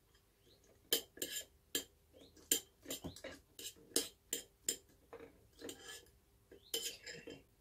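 Metal fork and spoon clinking and scraping against a plate in a dozen or so irregular short strokes, as cooked lamb is pulled off the bone.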